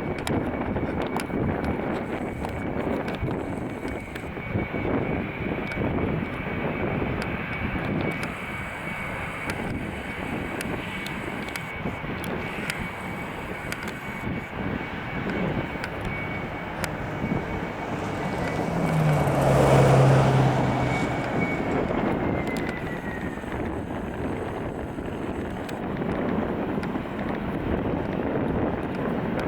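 Jet airliner passing: a steady high engine whine over a broad rush, loudest about twenty seconds in, after which the whine drops in pitch as the plane goes by. Wind buffets the microphone throughout.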